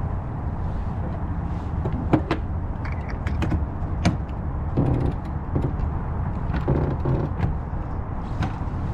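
Sailboat under way under sail: a steady low rumble, with scattered knocks and clicks from the boat's gear, some of them in quick pairs.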